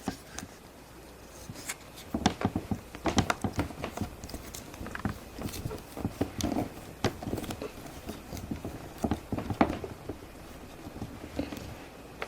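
Hands working Play-Doh with plastic moulds and tools: a busy run of small clicks, taps and knocks, thickest in the middle stretch.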